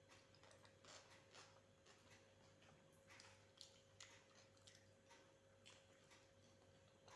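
Faint eating sounds: someone chewing rice with mashed boiled food, giving small irregular wet clicks and smacks, over a low steady hum.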